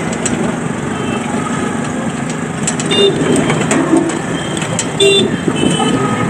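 Busy street traffic, with short vehicle horn toots about three and five seconds in, and voices of people around.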